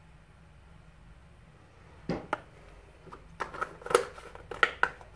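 About two seconds in, a series of sharp clicks and knocks begins, like hard objects being handled and set down on a work surface. There are about eight to ten of them over three seconds, after a stretch of faint background hiss.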